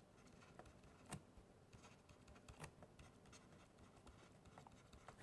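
Near silence with a few faint, isolated taps of a stylus writing on a tablet screen; the clearest comes about a second in.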